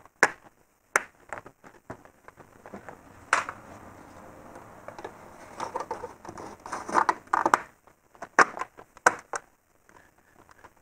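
Plastic clips of a BMW kidney grille snapping into the bumper as the grille is pressed into place: a scattered series of sharp plastic clicks, bunched together about seven seconds in, with gloved hands rubbing and rustling on the plastic between them.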